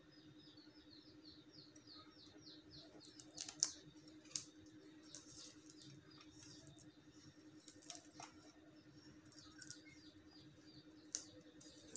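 Faint rustles and light taps of plastic gift ribbon and packing strap being pressed and smoothed by hand against a tiled floor, over a steady low hum. A rapid run of faint high chirps fills the first few seconds.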